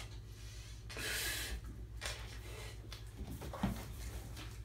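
A breath blown into a disposable exam glove to inflate it as a balloon: a rush of air about a second in and a weaker puff just after two seconds. Then come faint rubbing and handling sounds as the inflated glove is twisted closed.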